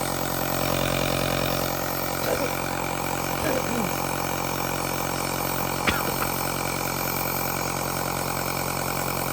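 Compressor nebulizer's small motor running with a steady hum, with a single sharp click about six seconds in.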